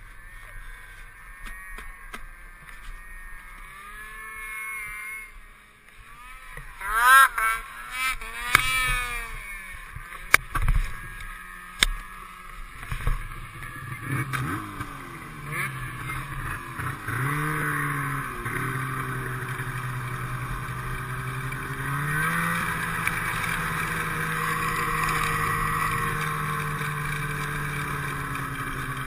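Ski-Doo snowmobile engine idling, then revved sharply several times about seven seconds in, with a few knocks. It then accelerates and runs steadily as the sled pulls away, the pitch stepping up again near the end.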